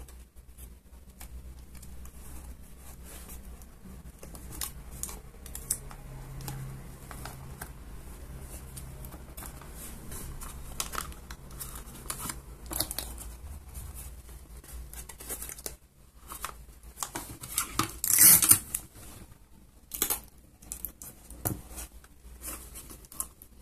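Paper and thin card being handled and pressed onto a small paper box: crinkling, rustling and small clicks over a low steady hum, with a louder ripping sound about 18 seconds in and a shorter one about two seconds later.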